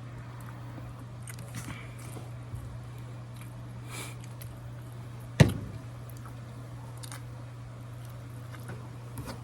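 Someone eating crab: faint clicks and rustles of handling and chewing over a steady low hum, with one sharp knock about five and a half seconds in.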